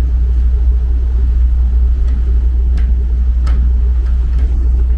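Steady low rumble with a few faint clicks about two to three and a half seconds in.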